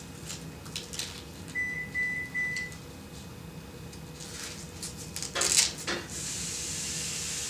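Rustling and scraping of a fabric dog bootie being handled and pulled onto a dog's paw, with louder rasping strokes a little past halfway. A quick run of four short electronic beeps sounds near the two-second mark, and a steady hiss sets in about six seconds in.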